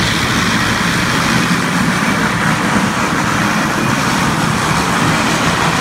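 Contec Omega 450 floor grinder running steadily, its electric motor humming under the hiss of the grinding head scraping carpet glue and filler off a mastic asphalt floor.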